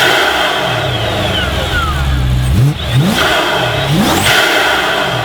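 Supercharged 4.6-litre V8 of a G-Power Hurricane RS BMW M3 revved in short blips: one at the start and a couple more a little past halfway, dropping back to idle between them. A high supercharger whine rises with each blip and falls away after it.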